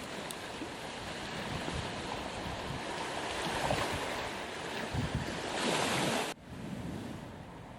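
Sea surf washing onto a beach, with wind on the microphone. The rush of the waves swells twice, cuts off abruptly about six seconds in, and a quieter wash follows.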